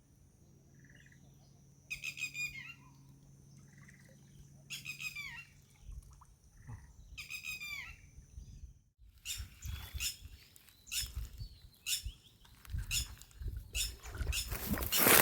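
A bird calls three times, a quick run of falling notes each time, about two and a half seconds apart, over a steady high thin tone such as an insect. About nine seconds in, this gives way to irregular clicking and rustling that grows louder near the end.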